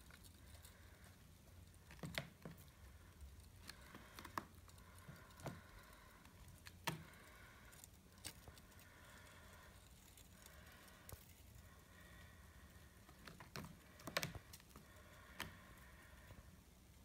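Near silence with scattered faint clicks and taps, a few a little louder than the rest, about two seconds into the clip, near the middle, and again near the end.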